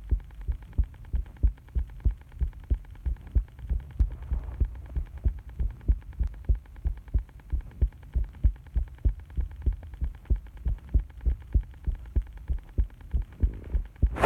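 Human heartbeat recorded up close, a steady rhythm of low lub-dub thumps over a faint background hiss. A loud burst of noise comes right at the end.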